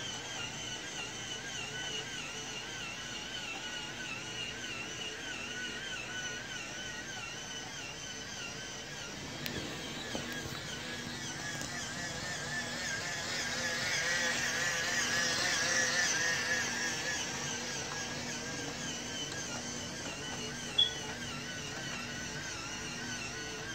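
Toy Christmas train running around a plastic track loop, its small motor and gears giving a wavering whine that swells as the train passes close about halfway through. A single sharp click sounds near the end.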